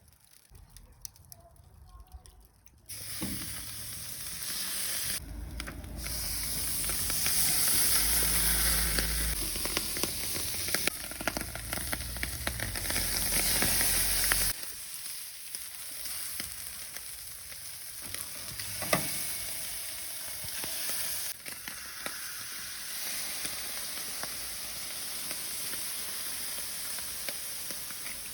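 Fish sizzling as it cooks: a steady hiss with scattered small pops that starts about three seconds in. A low rumble runs under it until about halfway.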